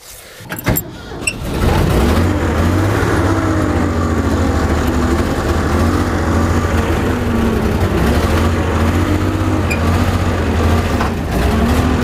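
DeWeze hay truck's engine running steadily, coming in loud about two seconds in after a few light clicks and knocks.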